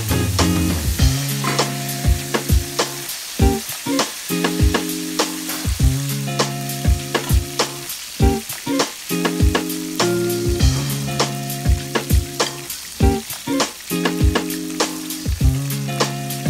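Breaded chicken wings frying in hot oil in a pan, a steady sizzle full of crackles and pops, with metal tongs turning the pieces now and then. Background music with held chords plays underneath.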